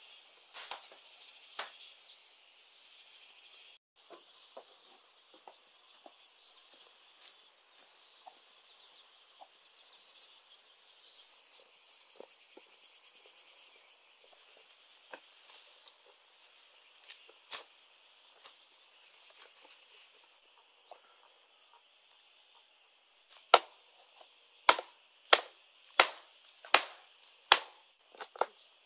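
A machete chopping at a fan palm: about seven sharp, loud strikes in quick succession near the end. Before them there is a steady high buzz with scattered small clicks.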